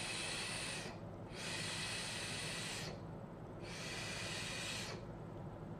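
Three long airy hisses, each about one to one and a half seconds, of a person drawing on a Reload RTA rebuildable tank atomizer and blowing out the vapour.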